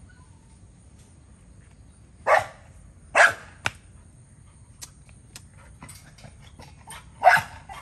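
Dog barking from a kennel cage: three short barks, two close together a couple of seconds in and one more near the end.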